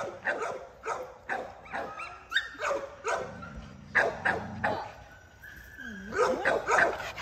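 Dogs barking and yipping in quick, repeated sharp barks, two or three a second. There is a brief lull about five seconds in with a thin, high whine before the barking picks up again.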